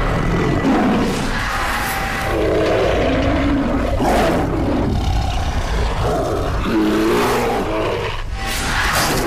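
Bears fighting: a run of loud, overlapping roars and growls, one after another.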